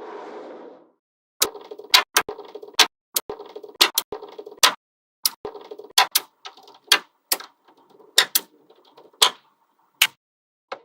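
Small neodymium magnetic balls snapping together with sharp clicks, one to three a second, with rattling between the clicks as they are handled and fitted into place.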